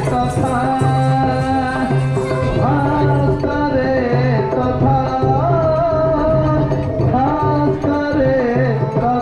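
Live Odia Gotipua dance music: a voice sings a winding melodic line over repeated hand-drum beats.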